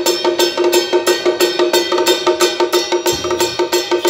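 Temple-procession percussion: quick, even metallic strikes, about four a second, over a steady ringing tone, with a low boom about three seconds in.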